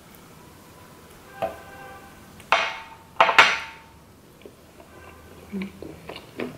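Dishware clinking: chopsticks and a small ceramic sauce dish knock against a ceramic plate, a few sharp clinks with a brief ring, the loudest two in the middle. Then soft wet chewing of a mouthful of sushi.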